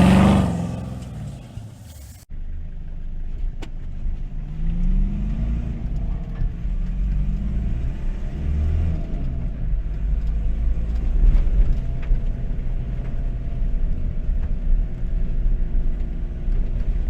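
Two-wheel-drive Toyota HiLux engine running as the ute drives a rough off-road track, revving up and easing off a couple of times, then running more steadily. The opening sound fades away over the first two seconds and cuts off abruptly before the engine sound takes over.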